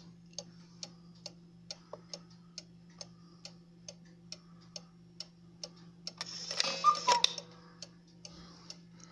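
Mechanical cuckoo clock ticking steadily, about two ticks a second: the weight-driven movement running properly on its new chains. Roughly six seconds in, a brief louder rustling noise covers the ticks for about a second.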